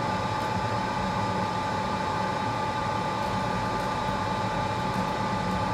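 Steady whir of a fan or ventilation unit with a faint constant whine and a low hum, unchanging throughout.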